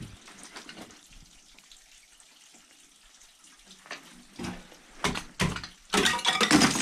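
Faint steady trickle of a small waterfall. From about four seconds in, it is overtaken by a run of sharp knocks and crunches that grow louder toward the end.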